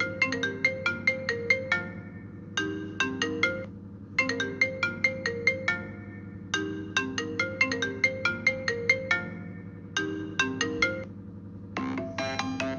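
iPhone ringtone playing: a short melody of struck, decaying synthetic notes, repeated in phrases with brief pauses between them. Near the end a different, busier and higher-pitched ringtone starts.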